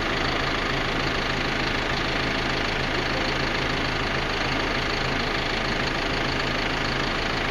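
Cat D6K2 dozer's diesel engine idling steadily.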